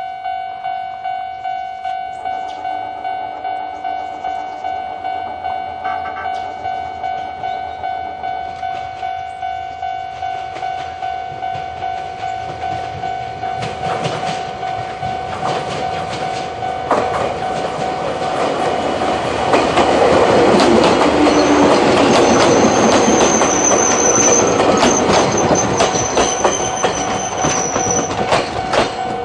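Level crossing warning bell ringing steadily at about two strikes a second while a train approaches and passes over the crossing. The train's noise builds from about halfway through and becomes the loudest sound near the end, with wheels clattering over rail joints and a high squeal.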